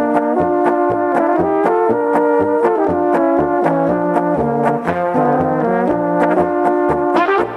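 Brass band playing a polka: sustained brass melody over a steady beat of evenly spaced drum strokes.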